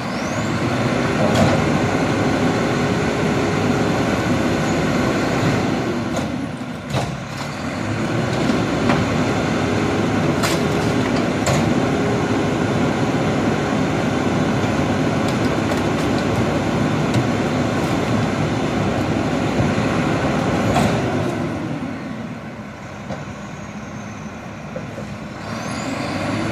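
McNeilus rear-loader garbage truck's diesel engine revved up and held high to drive the hydraulic packer as it compacts trash in the hopper, with a few sharp knocks of the packer and can. The revs dip briefly about seven seconds in, drop back to idle about twenty-two seconds in, and rise again near the end.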